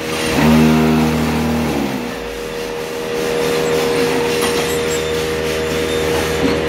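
Concrete paver block machine running through its moulding cycle, pressing red concrete pavers. A louder, deeper hum lasts about a second and a half near the start, then the machine settles into a steady whining hum with clatter.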